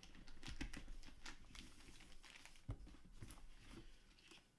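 Faint rustling and crinkling of paper and plastic wrapping, with scattered light clicks and knocks, as wrapped items are handled and lifted out of a collector's box compartment.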